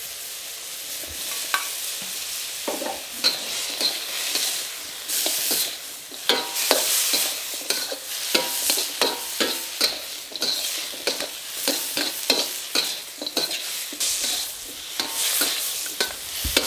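Pork cracklings and chopped chillies sizzling in a wok while a metal spatula stirs them, with repeated short scrapes and clicks of the spatula against the pan over a steady hiss.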